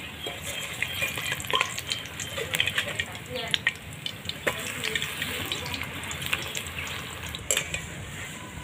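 Gram-flour-battered helencha greens fritters sizzling in hot oil in a kadai, with many small crackles. There are scattered clicks of a metal slotted spoon against the pan as the fritters are lifted out.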